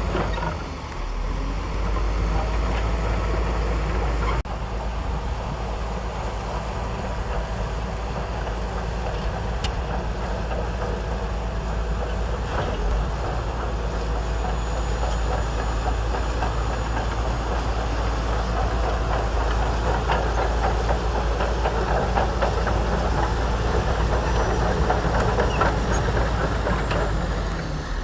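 Shantui DH17C2 bulldozer's diesel engine running steadily under load, with the clatter of its steel tracks.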